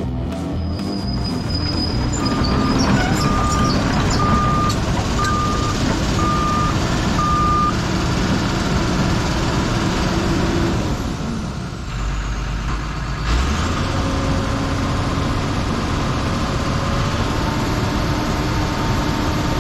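Heavy diesel equipment running, with a backup alarm beeping six times about a second apart near the start. About two-thirds of the way through, the sound changes to a steadier engine idle.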